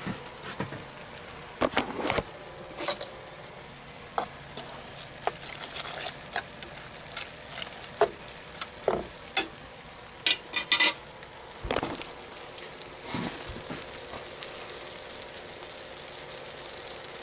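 Egg and canned tuna frying in a pan with a steady sizzle while the egg sets. Scattered short clicks and clinks of a spoon in a pot of ramen noodles come over it.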